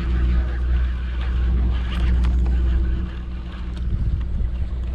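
Sportfishing boat's engine running steadily, a low drone under the deck, with a few light clicks about two seconds in.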